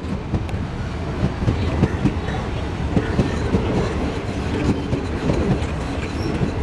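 Indian Railways passenger coaches passing close by at speed: a steady rumble of wheels on the rails, broken by frequent clickety-clack as the wheels cross the rail joints.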